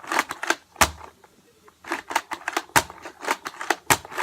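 Objects being handled: quick runs of clicks and taps, with three louder sharp knocks about a second apart.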